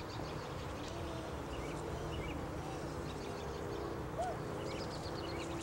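Quiet outdoor ambience under a steady camcorder hum and hiss, with faint scattered high chirps of small birds.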